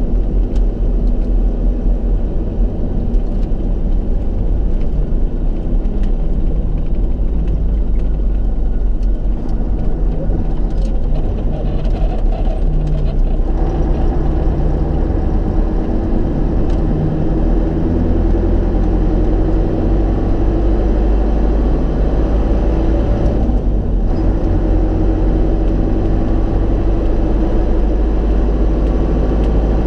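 Tatra 8x8 truck running on the road, heard from inside the cab: a steady deep rumble with a droning engine tone that shifts in pitch about 13 seconds in and again about 23 seconds in.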